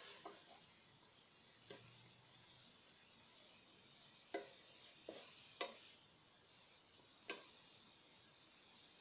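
Broccoli sizzling faintly in a nonstick pan as it is stirred, with about six light knocks of the stirring utensil against the pan, the loudest about four and a half and five and a half seconds in.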